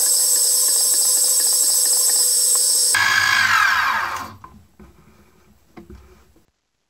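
Benchtop mini mill drilling a roughly 6 mm hole in an aluminium block, the spindle motor whining steadily as the bit cuts. About three and a half seconds in, the whine falls in pitch and dies away, followed by a few faint clicks.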